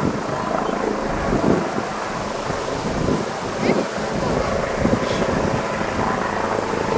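Jet airliner engines running with a steady rushing rumble and a faint whine, mixed with wind buffeting the microphone.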